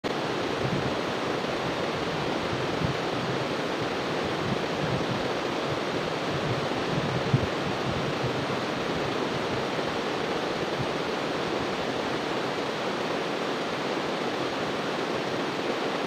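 Shallow stream rushing over rocks in a small cascade: a steady, even rush of water, with one brief knock about seven seconds in.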